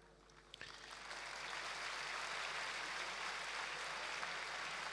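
A large audience applauding, starting about half a second in and swelling into steady applause.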